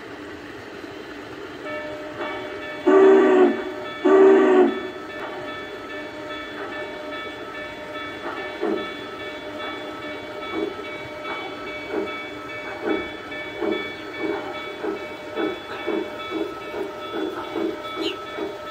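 G scale model steam locomotive sounding two whistle blasts about three seconds in, the signal to move off, then chuffing as it starts to roll, the chuffs coming faster toward the end. A steady hum runs underneath throughout.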